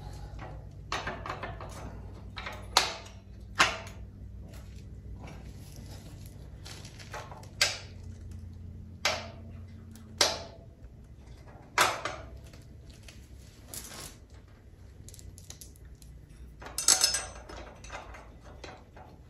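Scattered sharp metal clicks and clinks as a bolt-on differential brace and its bolts are worked into place against an ATV's rear differential, with a small cluster near the end, over a steady low hum.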